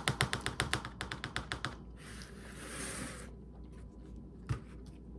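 Fork clicking and scraping rapidly in a mac 'n cheese cup, about ten clicks a second for under two seconds, followed by a short rustling hiss and a single knock.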